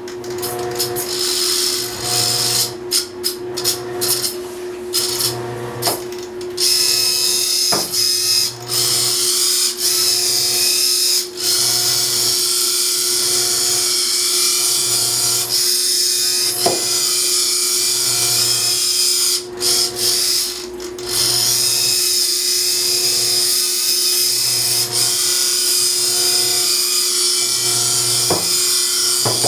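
Small electric motor of a battery-powered RC model tugboat running, a steady high whine with a hiss, briefly cutting in and out a few times in the first several seconds.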